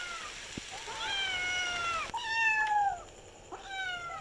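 Kittens meowing: a string of high-pitched meows, each about a second long and falling in pitch, one after another with short gaps.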